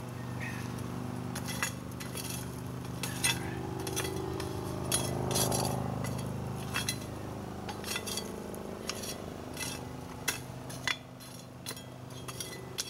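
Metal tongs picking up charcoal briquettes and setting them on a cast-iron Dutch oven lid: irregular sharp clinks and clacks of metal against coals and iron. A steady low hum runs underneath, louder around the middle.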